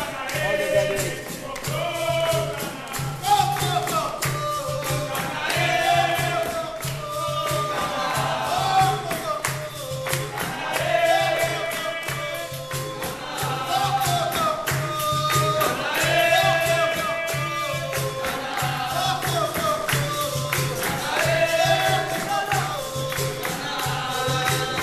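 Capoeira roda music: berimbaus, pandeiros and an atabaque drum keeping a steady rhythm, with a group singing and clapping along.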